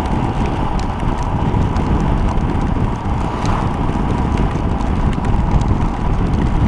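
Motorcycle riding at road speed: wind rushing over the microphone, with the engine's steady drone beneath.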